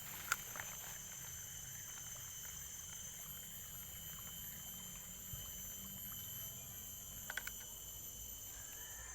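Outdoor ambience: a steady high-pitched drone over a low rumble, with a sharp click about a third of a second in and three quick clicks near the end.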